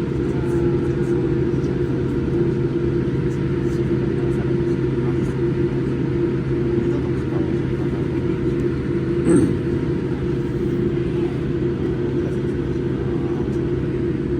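Steady drone of an airliner cabin in flight: the hum of the jet engines and airflow holds level throughout, with one short click about nine seconds in.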